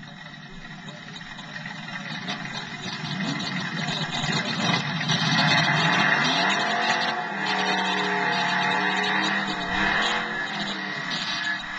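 Drag-racing car engines revving at the starting line and then accelerating away down the strip. The engine sound builds over the first few seconds, climbs in pitch about six seconds in, then holds a steady note until near the end.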